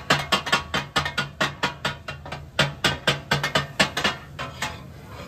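Metal spatulas striking a large iron tawa in a fast, even rhythm, about five clanks a second, as fish katakat is chopped and mixed. The beat breaks off briefly about two seconds in and slows and thins near the end.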